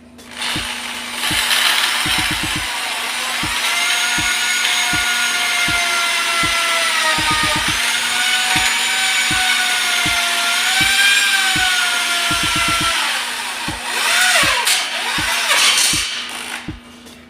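Handheld electric power tool running under load on a metal cable tray for about sixteen seconds, its motor whine dipping and rising as the load changes before it stops near the end.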